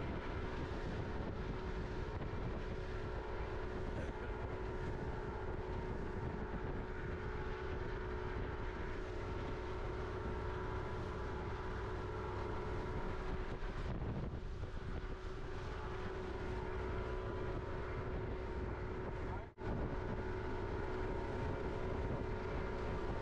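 Motorboat engine running steadily at cruising speed, a constant drone with a few steady tones, mixed with the rush of water along the hull. The sound drops out for an instant about three-quarters of the way through, then the same drone resumes.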